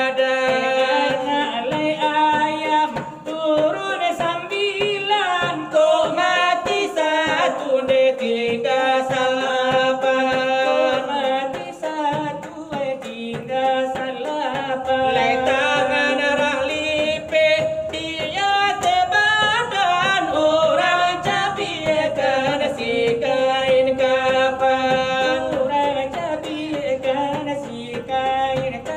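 Salawat dulang: two men singing a Minangkabau devotional chant while beating large brass trays (dulang) with their hands, the sharp tray strikes keeping time under the voices.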